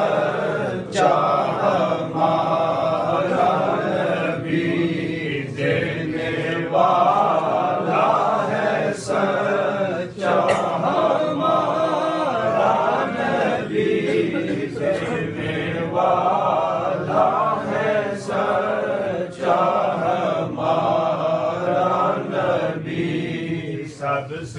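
Group of men chanting an Urdu devotional naat together in unison, without instruments, in lines broken by short pauses about every nine seconds.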